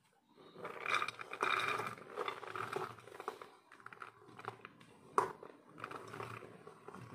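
Diced vegetables being swept by hand off a steel plate and dropping into a pressure cooker: an uneven run of soft rattles and patters, with a sharper click about five seconds in.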